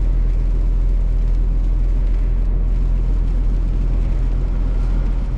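Scania R450 truck cruising, its engine and road noise making a steady low drone with an even hum underneath.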